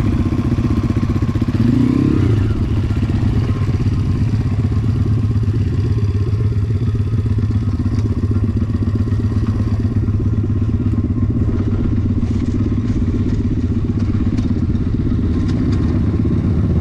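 Dirt bike engine running at low, steady revs while riding down a dirt trail, with a short rev about two seconds in. Light rattling clicks come in over the bumps in the second half.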